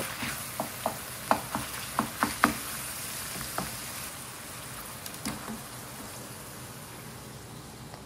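Beef, onions and garlic sizzling in a frying pan as they are stirred, with a run of sharp taps in the first two and a half seconds and a couple more later.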